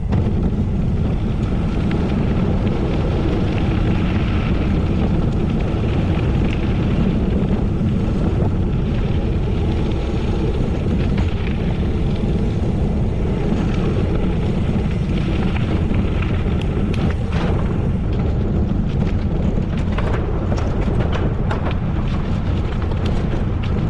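Wind rumbling steadily on a moving camera's microphone during a gravel bike ride, with scattered sharp crackles and ticks in the last several seconds.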